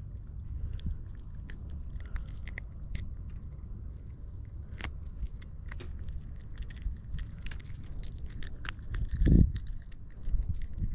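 Scattered small clicks and crackles of hands handling a small spotted seatrout and working the hook free, over a steady low rumble, with one dull thump about nine seconds in.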